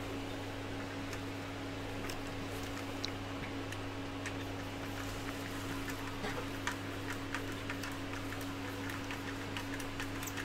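Faint clicks and ticks of a small screwdriver driving a screw into a 3D-printed plastic part, coming more often in the second half, over a steady low hum.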